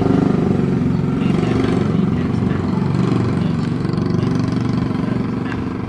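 An engine running steadily, with a low hum throughout, easing off slightly near the end.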